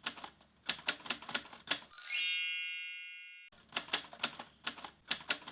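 Typewriter keys clacking in quick irregular strokes, with a single bell ding about two seconds in that rings on and fades away before the typing resumes.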